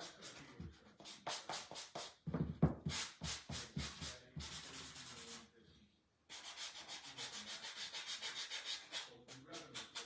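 Hand-sanding the edges and corners of a small piece of wood with a sanding block: quick back-and-forth scraping strokes, several a second, with a brief pause about six seconds in.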